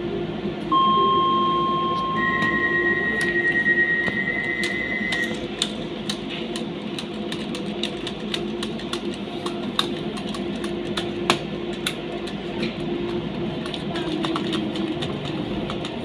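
Docklands Light Railway train's door-warning tones: a steady tone about a second in, then a pulsed beeping that stops about five seconds in. After that the train pulls away, with a steady hum and scattered clicks.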